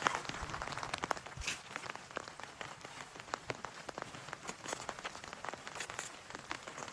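Rain falling, with many separate drops tapping on a surface over a steady patter; a little louder in the first second, then even.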